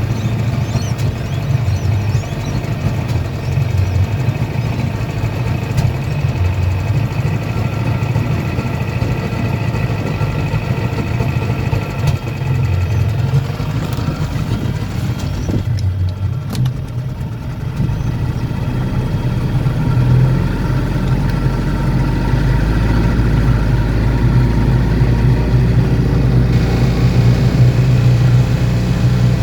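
Carburetted engine running and sneezing: it runs lean from restricted fuel flow and a broken pickup tube in one carburettor fuel bowl. It runs steadily, a little louder from about two-thirds of the way in.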